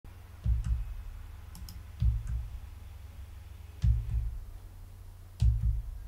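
Four dull low double knocks, one about every one and a half to two seconds, with faint sharp clicks alongside them.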